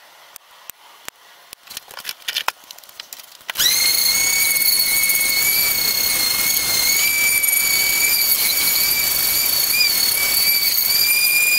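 A run of light clicks and taps, then a Ryobi random orbital sander switched on about three and a half seconds in, running steadily with a high whine as it sands a wood board.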